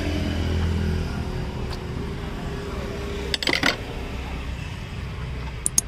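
A steady low engine hum with a few sharp plastic and metal clicks, a cluster about three and a half seconds in and another near the end, as hose connections are unclipped in a car's engine bay.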